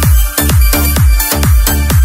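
Electronic dance music: a steady four-on-the-floor beat with a deep kick drum about twice a second and hi-hats between the kicks.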